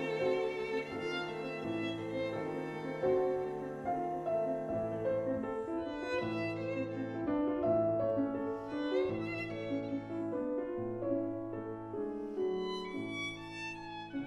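Background film score: a slow melody of held string notes over a sustained bass line that changes every second or two.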